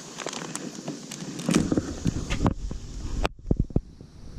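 Scuffing, clicks and knocks of close handling as a bluegill is held and lowered into the water at a gravel shoreline, over a low rumble of microphone handling noise. About three seconds in the upper sound cuts off abruptly, leaving a few low thumps.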